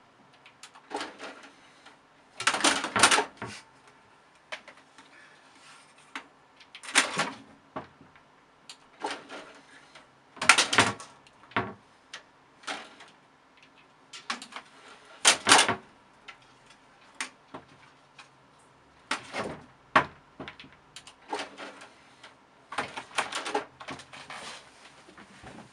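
A cat's claws scratching and paws batting at the front of a computer tower near its DVD drive: irregular bursts of scraping and clattering, some half a second long, others short knocks, over a faint steady hum.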